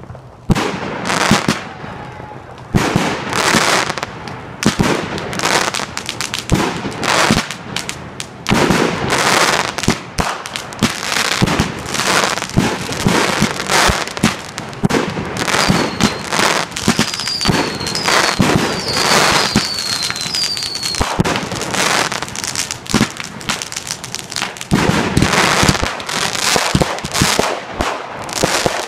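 Consumer fireworks going off in quick succession: many sharp bangs and crackling, with a run of short falling whistles about halfway through.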